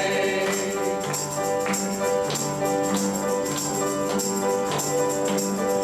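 Instrumental break in a gospel hymn played by a church band: sustained chords, with a tambourine striking in a steady beat about every half second.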